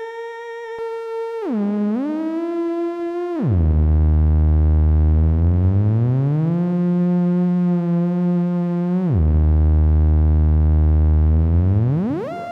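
Electronic theremin playing a single buzzy, harmonic-rich tone that slides in pitch. It dips and recovers, then drops steeply to a deep low note about three seconds in, slides up and holds a little higher, drops low again about nine seconds in, and sweeps steeply upward near the end.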